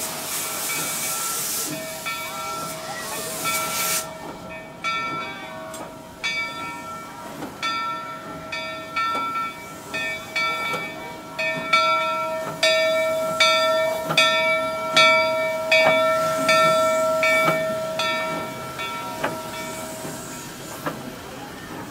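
Steam locomotive (Rio Grande Southern 41, a Baldwin 2-8-0) with a loud hiss of escaping steam that cuts off about four seconds in. Its bell is rung over and over, roughly once a second, loudest past the middle and dying away near the end.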